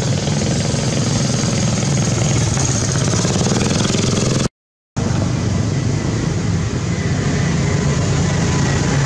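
A steady engine-like drone, a constant low hum under a hiss, that cuts out completely for about half a second around the middle and then resumes unchanged.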